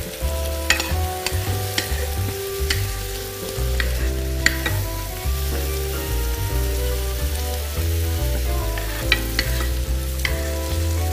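Granny Smith apple pieces and a John Dory fillet sizzling in a hot frying pan, with a series of sharp taps and clicks of a utensil in the pan, bunched in the first few seconds and again near the end.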